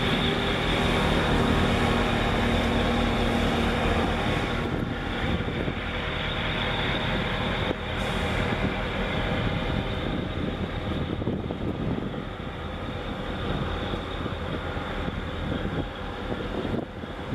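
Steady diesel engine drone from a passing container ship and the harbour tug running alongside it. A few held low hums sound in the first few seconds, then the drone turns to a rougher rumble and slowly fades as the vessels move away.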